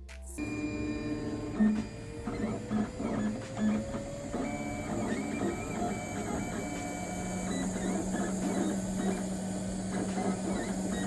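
FDM 3D printer running a print: its stepper motors whine in short pitched steps and one slowly rising tone, then settle into a steady tone over a constant hum.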